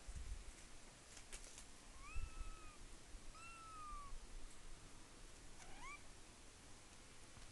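Black kitten mewing three times, thin high-pitched mews, the last one rising sharply.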